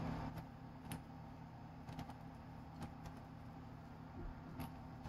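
Quiet handling noise of a USB cable being uncoiled in the hands, with a few faint, scattered clicks over a steady low hum.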